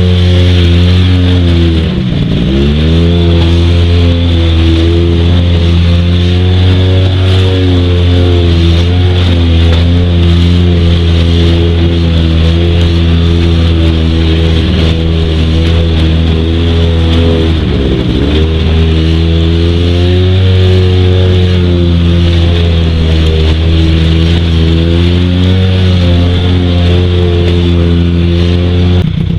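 Buran snowmobile's two-stroke engine running steadily under load, heard from the rider's seat while hauling a heavily loaded sled across hummocky river ice. The revs drop briefly and pick back up twice, about two seconds in and again a little past the middle.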